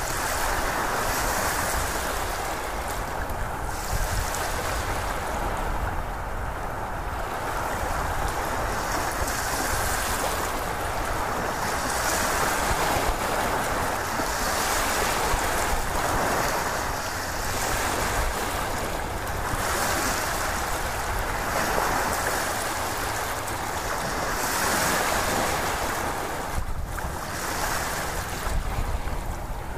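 Ocean surf: a continuous wash of breaking waves that swells and ebbs every few seconds.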